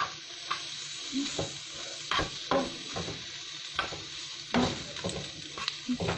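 Diced ham steak and green bell pepper sizzling in butter in a frying pan, with a utensil stirring and scraping against the pan in irregular clicks.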